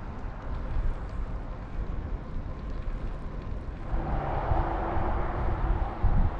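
Outdoor wind and road rumble on the microphone. About four seconds in, a louder rushing noise comes in and holds, with a faint steady hum under it.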